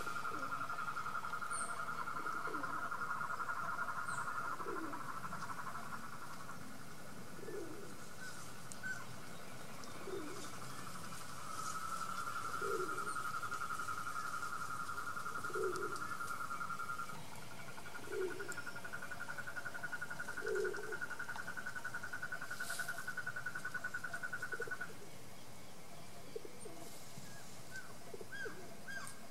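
Outdoor chorus of calling animals: long pulsing trills of several seconds each, one bout after another, with a short low call repeating about every two to three seconds.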